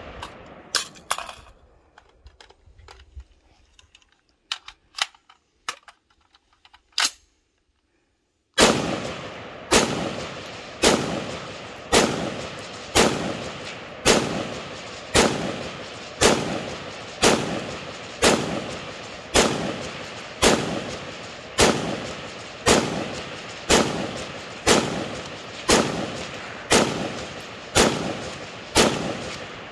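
FN 15 Guardian AR-15 rifle firing 5.56 NATO rounds semi-automatically, each shot followed by a short decaying echo. A few shots open, then a pause of several seconds with a few faint clicks, and from about nine seconds in a steady string of shots, roughly one every 0.7 seconds.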